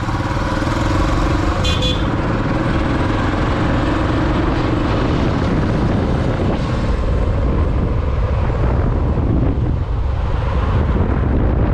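Motorcycle engine running steadily while riding, with road noise around it. A short horn toot sounds about two seconds in.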